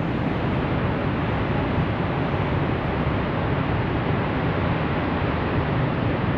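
Steady roar of Niagara Falls: a dense, even rush of falling water that does not change.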